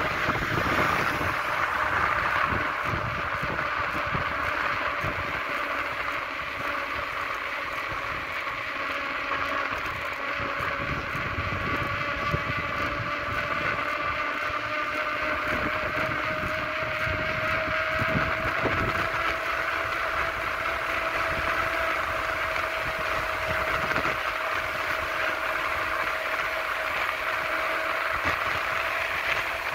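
Steady rolling noise of wheels on asphalt while descending a mountain road, with a hum that rises slowly in pitch and wind buffeting the microphone.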